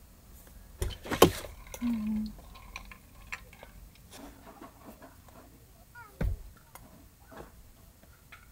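Hands clapping and tapping against each other while signing, with clothing rustle, a loud sharp clap about a second in and a duller thump near six seconds; a brief low hum about two seconds in.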